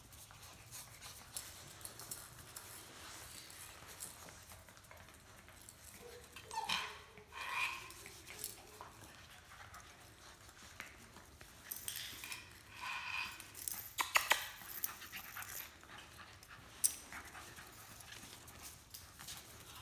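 Rottweiler puppies playing: a few brief, high puppy cries come about a third of the way in and again past the middle, among scattered light clicks and taps on the hard floor.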